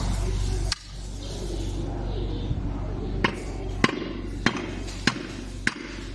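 Hammer striking a punch to set the rivets that fasten new lining to a drum brake shoe, with sharp metallic hits. There is one strike about a second in, then a pause, then five evenly paced strikes a little over half a second apart.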